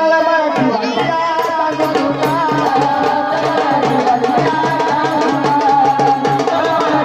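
Gondhal folk music instrumental passage: a fast, steady beat on the sambal drum pair under a wavering melody on an electronic organ.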